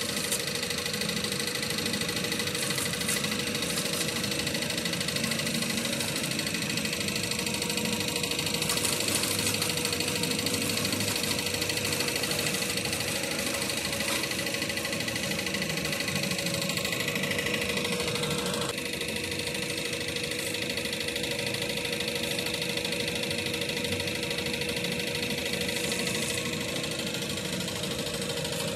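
An engine idling steadily. About two-thirds of the way through, its sound shifts and drops slightly in level.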